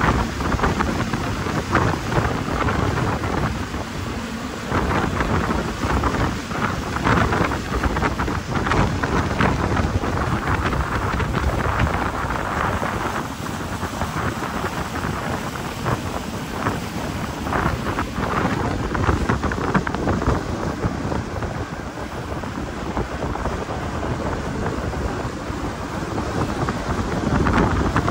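A motorboat running at speed across choppy water: the rush of the hull and its spray, with heavy wind buffeting the microphone in gusts.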